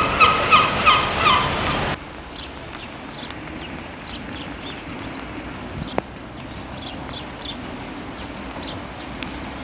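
A bird calling loudly in a quick series of pitched calls, which cuts off abruptly about two seconds in. After that comes quieter outdoor background with faint high bird chirps and a single sharp click.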